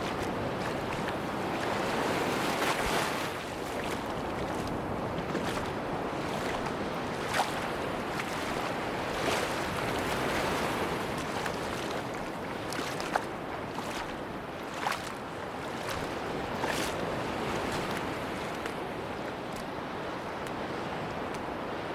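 Sea waves washing onto a beach, a steady rush of surf that swells and falls back, with a handful of brief sharp snaps at irregular intervals.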